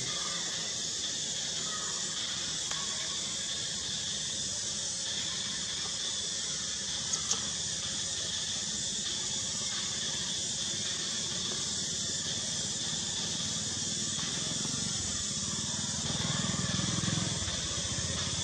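Steady high-pitched hiss of an insect chorus. There is a brief click about seven seconds in, and a louder low rumble a couple of seconds before the end.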